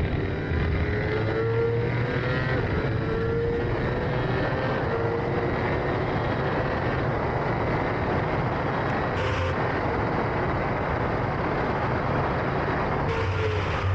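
Racing sidecar's engine running hard, its pitch climbing and dropping back again several times as it shifts up through the gears, over a steady rush of noise.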